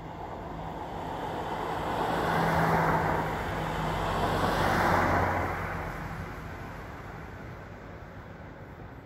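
Cars passing along the road: tyre and engine noise swells to peaks about three and five seconds in, then fades.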